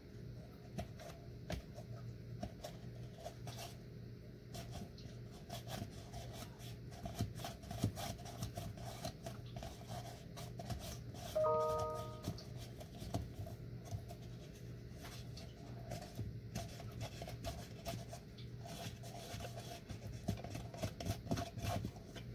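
Hand scraping and carving of paraffin wax, a rapid, irregular run of small scratches and clicks over a steady low hum. About halfway through, a short pitched tone lasts under a second.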